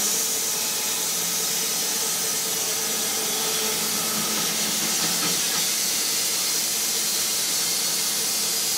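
Portable Wood-Mizer band sawmill cutting steadily through an old, weathered tree stump: a constant hissing saw noise with a low, even hum from the machine underneath.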